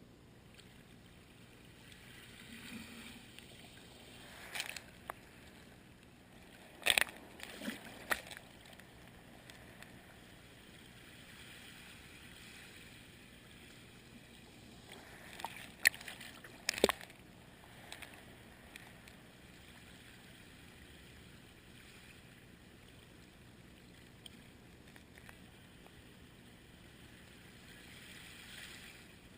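Faint wash of waves on a beach, with a handful of sharp clicks and knocks in two clusters.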